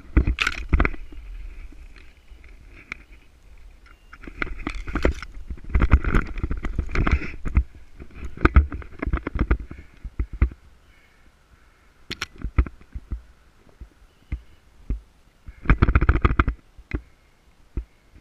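Dry branches and tall dry grass rustling and crackling against clothing and a body-worn camera as someone pushes through dense scrub. It comes in uneven bursts with sharp snaps and twig clicks, and low rubbing rumbles on the microphone.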